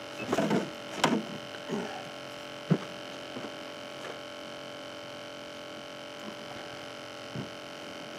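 Electric trolling motor running with a steady hum while the boat trolls. A few short knocks and bumps come in the first couple of seconds, and a single sharp tap follows a little later.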